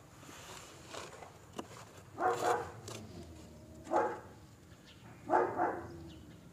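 A German Shepherd puppy sick with parvo cries out three times, in short pitched yelps, while a drip runs in under its skin. The cries are typical of a puppy that is restless and upset during the drip.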